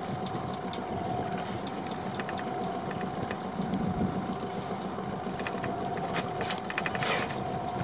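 A small boat's engine idling steadily with one even hum throughout, with scattered light clicks and knocks from gear being handled in the boat.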